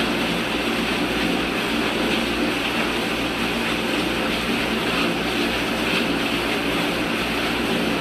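Dishwasher running: a steady motor hum under a rushing, spraying noise, cutting off abruptly near the end.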